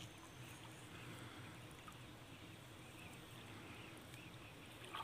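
Very faint sloshing of pond water as a man wades through it dragging a seine net, with soft irregular splashes over an otherwise quiet background.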